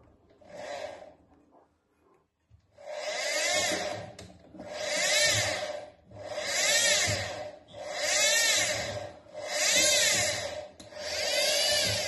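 Zanussi washing machine drum pulley turned by hand to seat the drive belt: six pushes about one and a half seconds apart, each a swelling whir of the drum and belt drive spinning up and running down, rising then falling in pitch.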